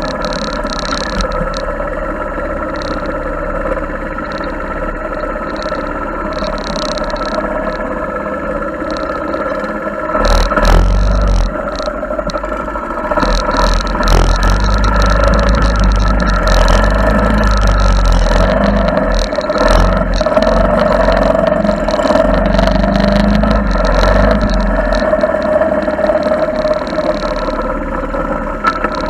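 Small four-stroke single-cylinder engine of a Honda ATC70 three-wheeler running steadily while riding. From about ten seconds in it gets louder, with a low rumble and frequent knocks and rattles.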